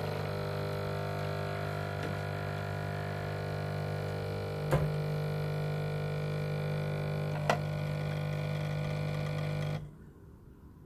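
Illy capsule coffee machine buzzing steadily as its pump dispenses a short coffee, with two sharp clicks in between; the buzz cuts off abruptly near the end as the brew finishes.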